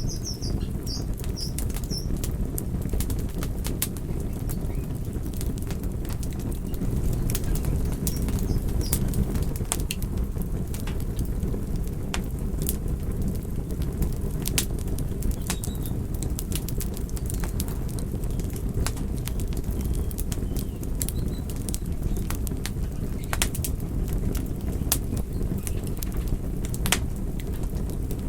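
Wood fire burning, with a steady low rumble under frequent irregular crackles and sharp pops.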